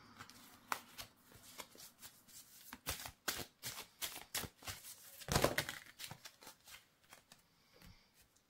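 Oracle cards being shuffled by hand: a run of quick card flicks and rustles, with one louder thump of the deck about five seconds in.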